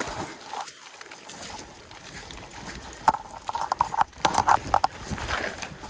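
Irregular splashing in shallow stream water as a freshly landed king salmon is rinsed off. The splashes come in quick clusters, mostly in the second half.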